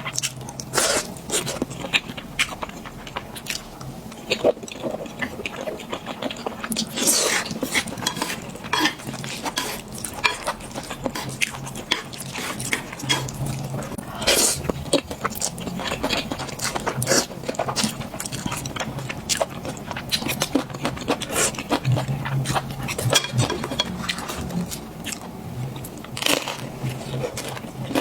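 Close-up eating sounds: chewing and biting food, with irregular wet smacks and occasional clinks of utensils against a bowl.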